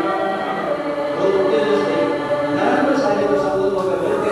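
Congregation chanting Buddhist prayers together in unison, many voices held on steady sustained notes.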